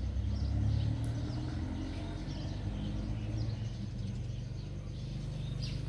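Small birds chirping faintly here and there over a steady low rumble of outdoor background noise.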